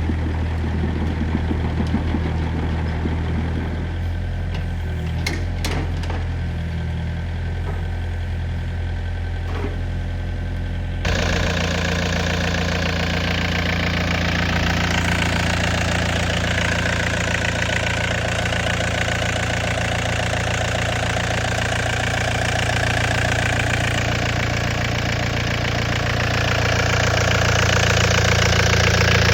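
Diesel engine of a 2013 Volvo ECR58 midi excavator running steadily at idle, with a few sharp clicks early on. About eleven seconds in the sound turns abruptly louder and fuller, then holds steady.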